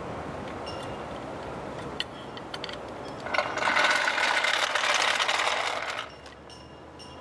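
Steel floor jack: a few metallic clicks from the jack and its handle, then the jack rolled out across asphalt on its wheels, a loud grinding rattle lasting about three seconds that stops abruptly.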